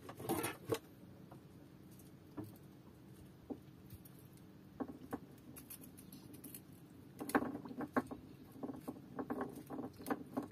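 Light clicks and scratches of a knife and fishing hook being worked in a small fish's mouth to pry out a deeply swallowed hook, with a denser run of clicks about seven to eight seconds in.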